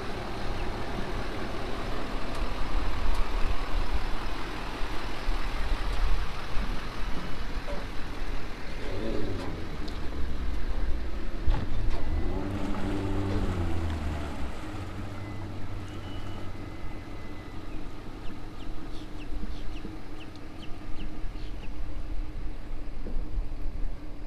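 Vehicle engines running: a pickup truck, then a boat's outboard motor idling at the dock, whose pitch dips and rises briefly around the middle. A steady low rumble lies under it throughout.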